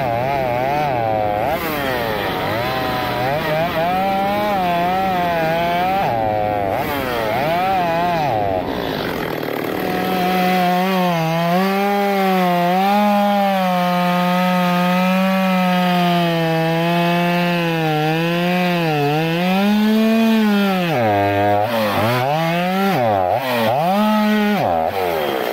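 Stihl 023 two-stroke chainsaw cutting through logs. Its engine pitch swings up and down at first, then holds fairly steady through a long cut, then drops and picks up again several times near the end.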